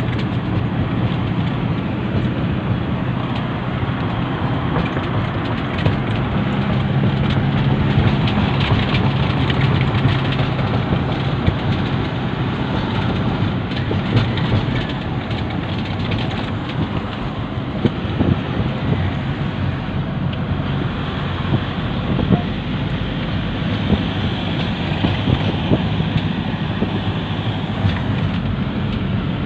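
Van cabin sound on the move: the engine's steady low hum under tyre and road noise, with scattered small rattles and knocks.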